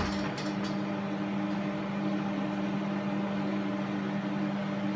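A steady low machine hum, with a few faint clicks in the first second.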